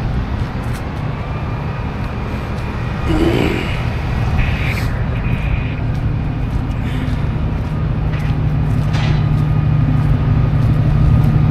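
Tow vehicle running on the road: a steady low engine and road drone that grows louder toward the end, with a few brief higher sounds a few seconds in.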